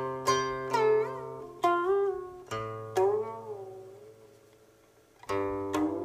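Guqin being plucked, each note's pitch sliding and wavering after the pluck as the left hand glides along the string, with a low note sounding under several of them. A long sliding note fades almost away about four to five seconds in before new plucks begin.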